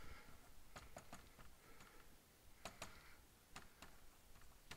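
Dry-erase marker writing on a whiteboard: faint, sharp taps of the tip on the board, several in close pairs, with light strokes between.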